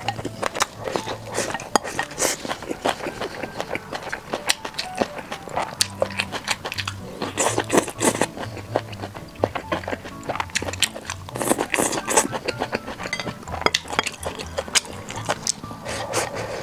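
Close-up eating sounds: chewing, with chopsticks clicking against a glass rice bowl, many small sharp clicks throughout, over background music.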